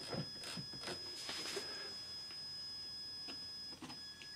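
Model railway locomotive moving slowly onto the turntable bridge. Its motor gives a steady high whine, and the wheels click regularly over the track for the first second and a half. The whine stops about three and a half seconds in as the locomotive halts.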